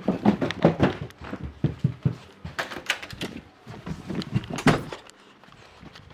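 Footsteps thudding down carpeted stairs, a string of irregular thumps and knocks that stops about five seconds in.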